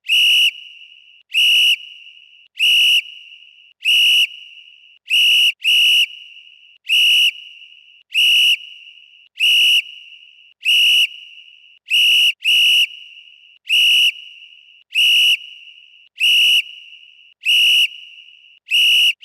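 Referee whistle blown in short, sharp, high blasts, a little more than one a second, now and then as a quick double, each with a brief echo fading after it.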